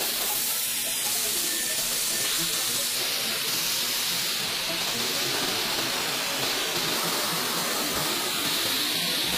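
Steady, even hiss of industrial machinery, with no distinct knocks or strokes.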